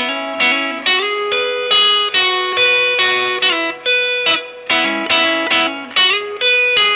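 Electric guitar, a Fender Japan ST-62 Stratocaster with Lollar '64 single-coil pickups, played through a Fender Blues Junior tube amp with no pedals and little gain. It picks a rhythmic pattern of chords and notes, about two strikes a second.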